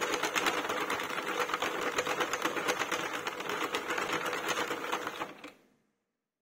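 Hand-cranked plastic circular knitting machine running, its latch needles clicking rapidly and steadily as the crank turns round after round, then slowing and stopping about five and a half seconds in.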